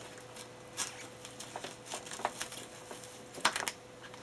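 Scissors scraping and snipping along the taped seam of a cardboard box, in scattered short clicks and scratches, the loudest cluster about three and a half seconds in.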